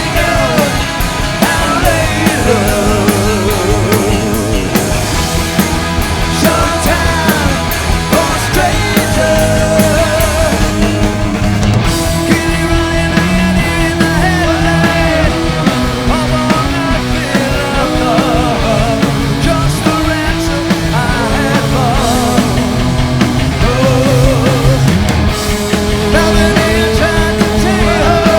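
Live hard rock band playing loud through a stadium PA: distorted electric guitars with bending lead lines over bass and drums, in an instrumental stretch of the song.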